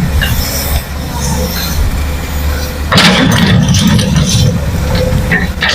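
Heavy diesel engine of earthmoving machinery running with a steady low drone, getting suddenly louder and rougher about halfway through, as under load.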